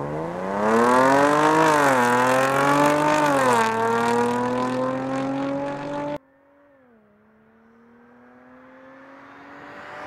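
Jaguar F-Type sports car engine accelerating hard, its note climbing through the gears, with two quick upshifts about one and a half and three and a half seconds in, then pulling on with a steady, slowly rising pitch. About six seconds in the sound cuts off abruptly to a faint engine note that grows steadily louder as the car approaches.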